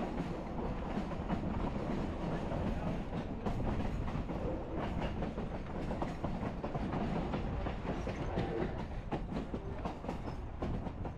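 Durango & Silverton narrow-gauge train rolling along the track: a steady rumble of wheels on rail with a running clatter of sharp clicks.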